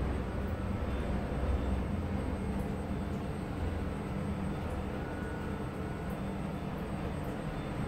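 Steady low mechanical rumble with a faint hum, heard inside an Airbus A320's tail compartment.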